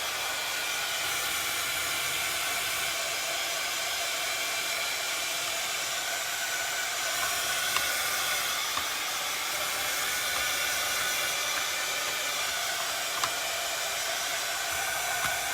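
Crafting heat tool blowing steadily, a hot-air whoosh with a faint motor whine, drying chalk paint.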